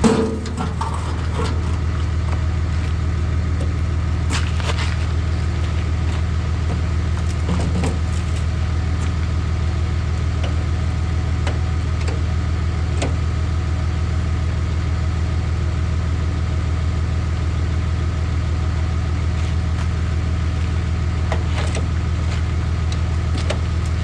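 Truck engine idling steadily, with a few scattered light clicks and ticks over the top.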